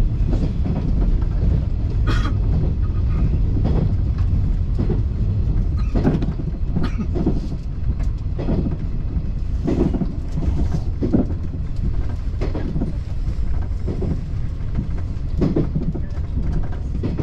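Running noise of a JR 381-series limited express electric train heard from inside its cab: a steady low rumble of wheels on rail, with a sharp knock from the wheels every one to two seconds, as over rail joints.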